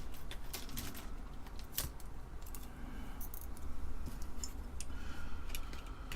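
Irregular light clicks and taps of small integrated-circuit chips being handled and set down on a workbench, over a faint low hum.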